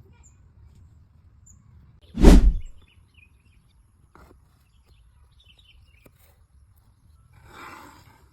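A single loud thump about two seconds in, then a softer scrape or rustle near the end, with faint bird chirps in between.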